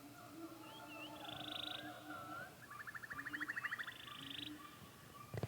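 Faint animal calls: short chirps followed by rapid buzzing trills, the pattern heard twice, as in a frog or wildlife ambience.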